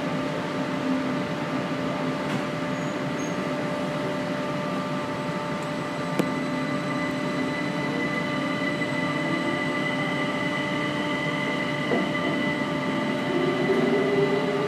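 Kaohsiung MRT Red Line train heard from inside the car, with a steady electrical hum and several fixed tones over running noise. Over the last couple of seconds a motor whine rises in pitch as the train pulls away and picks up speed.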